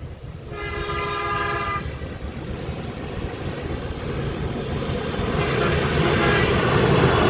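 A train's air horn sounds once for about a second, then the rumble of a train builds steadily louder, with the horn faintly again near the end.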